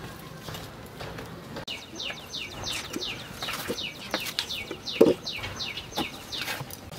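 A bird chirping a quick run of short falling notes, starting about two seconds in and stopping near the end, with a few sharp knocks, the loudest about five seconds in.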